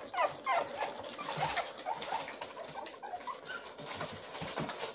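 Several pug puppies whimpering in short high squeaks, most of them in the first second or so, over the scratching and rustling of small paws on newspaper and plastic.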